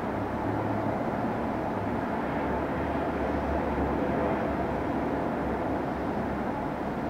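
Fire apparatus diesel engines running with a steady low rumble, slightly louder in the middle; no siren sounding.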